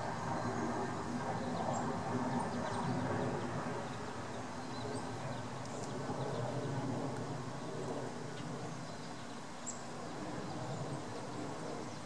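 Steady low outdoor background rumble with a few faint, short, high chirps scattered through it.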